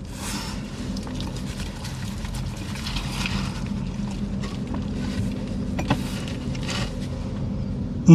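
Steady low hum of a car's engine idling, heard inside the cabin, with soft chewing and paper-bag rustles as a large burger is bitten into and eaten; a short, loud falling 'mmm' of a man's voice right at the end.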